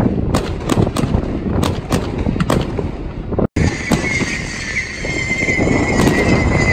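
Aerial fireworks going off: a quick run of sharp bangs and reports. After a jump in the sound about three and a half seconds in, a steady high whistle runs under further bangs.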